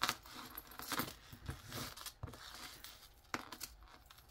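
Fine metal chain necklaces rustling and lightly clinking as fingers work a tangle loose, with a few sharp ticks of metal on metal or on the tabletop.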